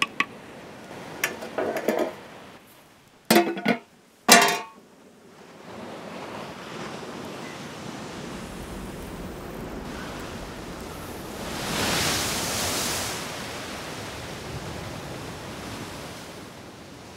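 A few sharp clinks and knocks of kitchen utensils in the first few seconds, then a steady hiss that swells briefly about two-thirds of the way in.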